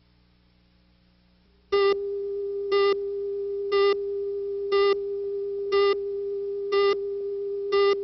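A steady electronic tone, a single pitch a little below 500 Hz, starts about two seconds in. Once a second a louder, buzzier beep at the same pitch sounds over it.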